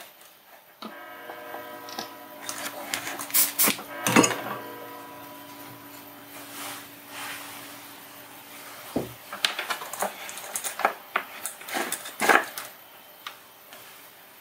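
Clicks, taps and knocks of small hand tools and wire being handled on a wooden desk, in two clusters. A steady hum of several tones starts suddenly about a second in and stops about five seconds in.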